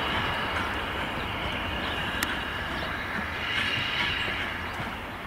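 LMS Jubilee steam locomotive 45690 Leander and its coach rolling slowly away over the station track, a steady rumble with a high whine that swells about three and a half seconds in. A single sharp click comes about two seconds in.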